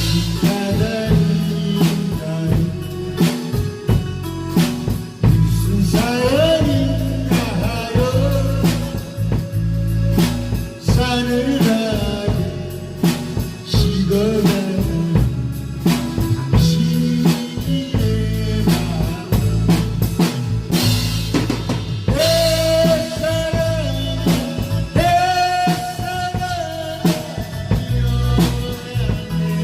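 Korean trot song with singing and a backing band, with a drum kit played along: kick drum, snare and rimshots keeping a steady beat.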